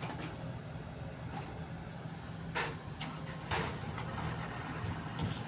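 Kobelco SK130 excavator's diesel engine running steadily. Two short scraping squeals from the machine stand out, about two and a half and three and a half seconds in.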